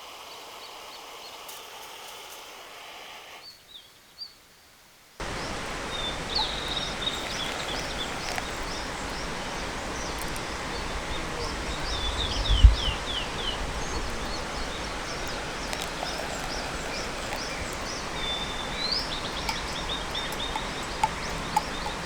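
After a short gap near the start, the steady rush of a river's flowing water, with songbirds calling over it in short chirps, a quick falling run of notes and a held note that rises near the end. One brief low bump about halfway through.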